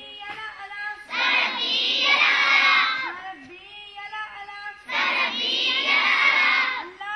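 A group of young schoolgirls singing in unison in call-and-response: a single voice leads and the whole group answers loudly, twice, about a second in and again about five seconds in.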